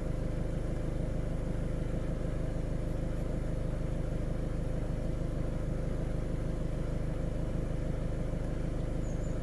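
VW Golf 7 engine idling steadily, a low even running sound with a faint steady whine.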